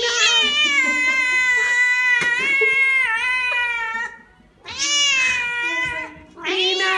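Domestic cat meowing: one long, wavering meow of about four seconds, then a shorter meow and a third beginning near the end.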